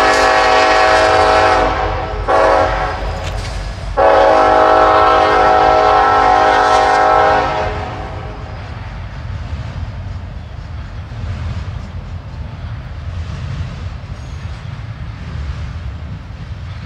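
Multi-chime air horn of a Union Pacific locomotive leading a westbound intermodal train, sounding a long blast, a short blast and a long blast of about three and a half seconds, the end of the long-long-short-long grade-crossing signal. Under it, and on alone after the horn stops about eight seconds in, comes the steady low rumble and clatter of double-stack cars rolling by.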